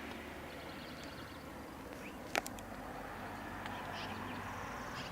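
Outdoor ambience: a steady faint hiss, one sharp click a little before halfway, and a few faint short high chirps in the second half.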